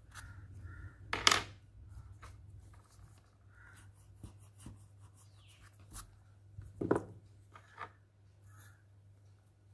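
Pencil and rubber eraser scraping on paper in a few short strokes, the two loudest about a second in and near seven seconds in, with fainter scratches and ticks between, over a low steady hum.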